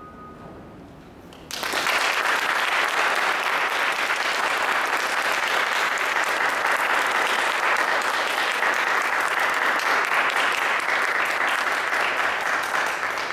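Audience applauding, breaking in suddenly about a second and a half in and holding steady.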